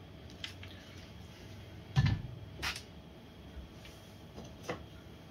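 A few short knocks and clicks of handling, the loudest about two seconds in, with quiet room tone between them.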